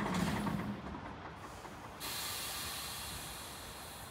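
Scania P410 truck's diesel engine fading out in the first second, then about two seconds in a sudden steady hiss of air from the truck's pneumatic brake system.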